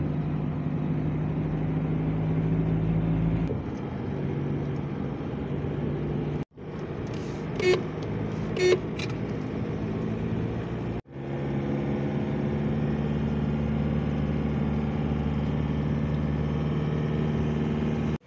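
Steady engine and road hum of a vehicle moving through city traffic, heard from inside the vehicle. About halfway through come two short car-horn toots about a second apart, and the hum drops out abruptly twice.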